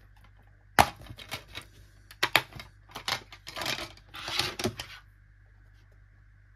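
Plastic DVD case snapping open with a sharp click, then a run of clicks and plastic rattles as the disc is pried off the centre hub and lifted out.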